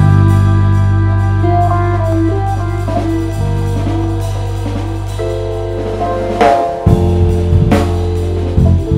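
Live band music: a held low bass note under sustained keyboard chords, then drum hits and a cymbal crash from about six and a half seconds in.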